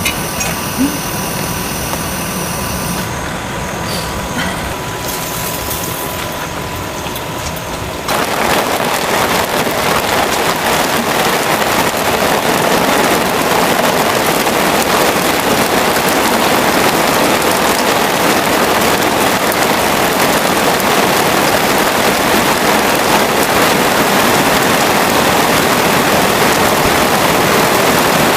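Heavy rain falling steadily; the downpour grows louder about eight seconds in.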